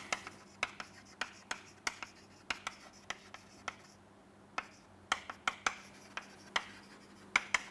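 Chalk writing on a chalkboard: a string of short, irregular taps and scratches, two or three a second, with brief pauses between words.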